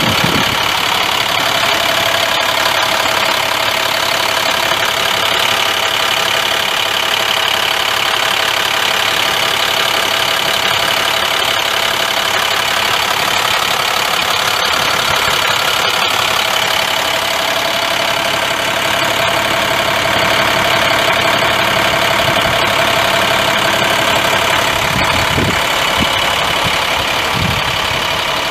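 International A350 9.3-litre inline-six turbo diesel of a dump truck idling steadily, with a steady whine held over the engine sound.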